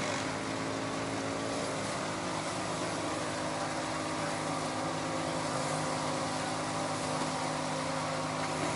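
GAZ-66 truck engine running steadily under a fairly even throttle while it takes the strain of a tow cable hooked to a stuck vehicle.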